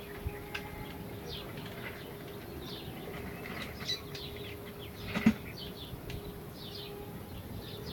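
Small birds chirping, short high calls repeated throughout, over a faint steady hum, with one sharp click about five seconds in.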